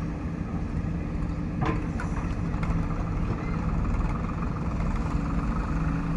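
Heavy diesel engine of earthmoving machinery running steadily, with a sharp knock about a second and a half in and a couple of lighter clicks after it.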